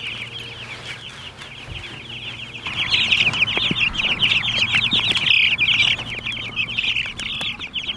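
A flock of young white broiler chicks peeping, many rapid high cheeps overlapping. The peeping grows louder about three seconds in.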